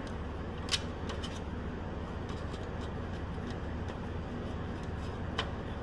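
Fluting pliers crimping the flange of an aluminium wing rib, with one sharp click about a second in, then light clicks and ticks of the rib being pressed and rocked on a flat aluminium plate to check that it lies flat. A steady low hum underneath.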